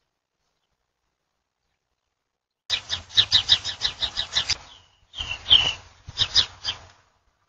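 Small dog yapping rapidly, about five sharp yaps a second, in two runs starting nearly three seconds in, with a short whine between them.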